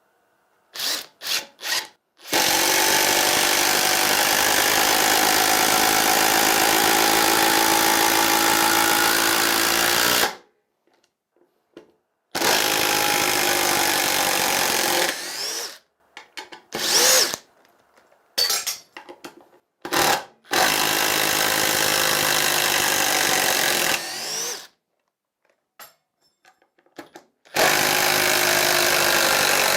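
Parkside Performance PDSSAP 20 Li B2 brushless 20 V impact driver driving screws into wood, hammering in runs. It opens with a few short trigger pulls, then one long run of about eight seconds, then several shorter runs with pauses between them.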